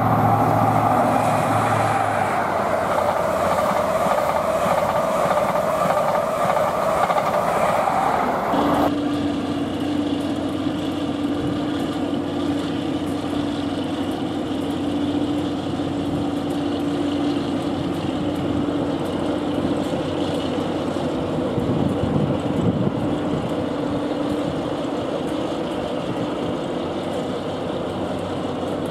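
A passenger train running into the station with a loud rushing rail noise that stops abruptly about nine seconds in. Then comes a steady drone with a low hum, from a Class 08 diesel shunter ticking over at idle.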